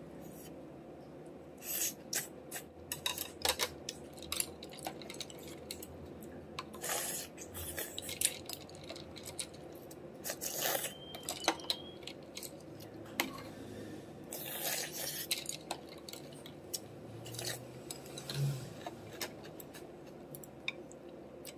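Spoon and chopsticks clicking and scraping against ceramic bowls and plates, in scattered short strikes, with close-up chewing in between.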